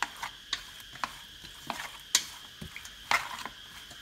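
Chopsticks stirring raw loaches coated in pounded galangal in a stainless steel bowl: wet squelching with irregular sharp clicks of the chopsticks against the metal, several of them spread across a few seconds.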